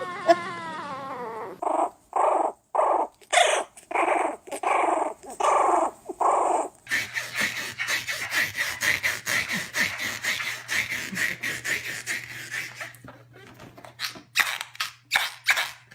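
A dog making strange noises: a run of short repeated calls a little under two a second, then a faster string of shorter sounds several a second.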